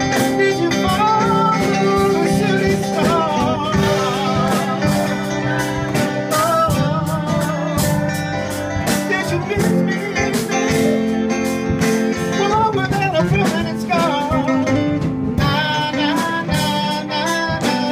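A live band playing a pop-rock song: a man singing lead over electric keyboard, electric guitar and a drum kit.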